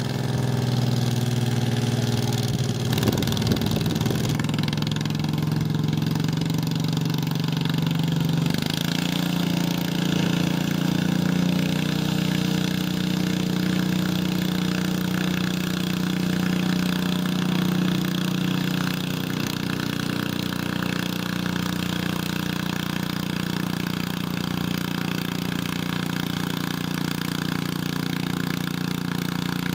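Garden tractor engine working under load while pulling a weight-transfer sled. Its pitch steps up about eight seconds in and then holds steady.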